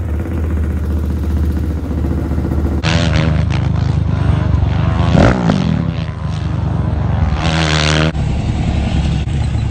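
Off-road ATV engine sound: a steady low drone at first, then from about three seconds in a quad's engine revving up and down hard, pitch rising and falling, as it spins circles in loose dirt.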